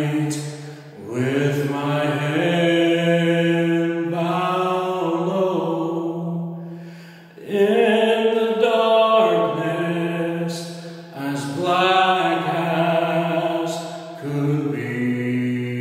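A man singing a slow gospel hymn in long held notes, with short breaks for breath between phrases.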